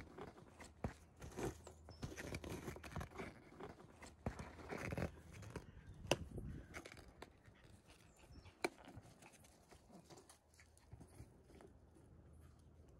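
Maltese puppy scuffling on gravel while pushing and mouthing a balloon: irregular crunching and scraping, busier in the first half, with sharp taps about six and about eight and a half seconds in.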